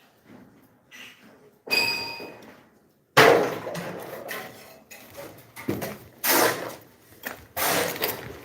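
Building-site knocks: a brief metallic clink that rings for about a second, then a loud knock and a run of further knocks and scrapes.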